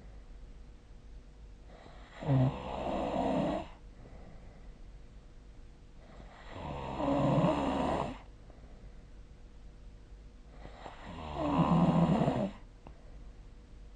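A sleeping person snoring: three snores about four and a half seconds apart, each lasting a second or more, with quiet between them.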